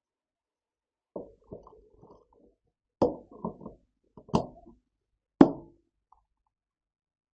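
A series of knocks and thuds, in small clusters from about a second in, with a single loudest knock near the end: objects being handled and set down while a package is unboxed.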